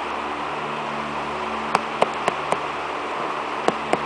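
Gloved fingers tapping firm red bell peppers in a cardboard box: a few short, sharp knocks, four in quick succession and then two more about a second later, over a steady background hum.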